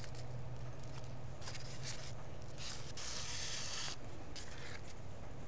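Sewing thread being drawn by hand through gathered fabric: short rustles of the cloth, and one longer hiss of about a second near the middle as the thread is pulled through. A low steady hum sits underneath.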